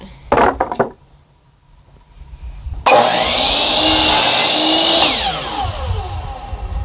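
Electric miter saw starting with a sudden whine and cutting through a sawmilled cedar board for about two seconds, then the blade spinning down with a falling pitch once the trigger is released. A few short knocks of the board being handled come before it.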